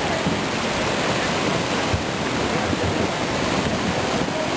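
Flash-flood runoff rushing and churning over rock in a creek, a steady noise of turbulent muddy water.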